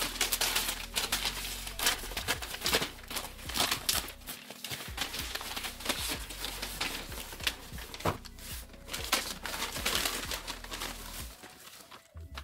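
Paper mailer envelope being handled, torn open and crinkled, with small plastic zip bags rustling as they are shaken out onto a table: irregular crackling and rustling that thins out near the end.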